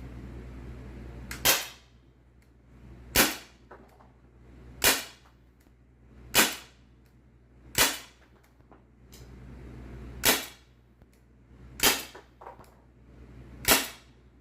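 Airsoft gun firing eight slow, aimed single shots, one sharp crack every one and a half to two and a half seconds, with a few faint clicks between some shots.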